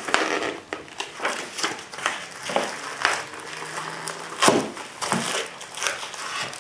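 Packaging being handled: paper sheets, a cardboard box and a plastic bag rustling and crinkling, with irregular light knocks. The loudest crackle comes about four and a half seconds in.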